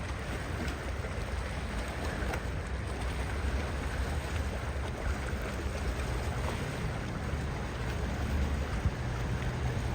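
A fast powerboat's engines run as a steady drone, mixed with rushing water and wind noise.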